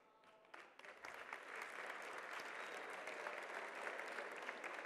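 Audience applauding: a few scattered claps that swell into steady applause about a second in.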